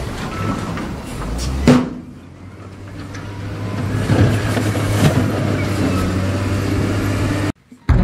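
SDLG wheel loader's diesel engine running as it works a rock and dirt pile, with a single loud knock a little under two seconds in. The engine then drops back and builds up again. The sound cuts out briefly near the end.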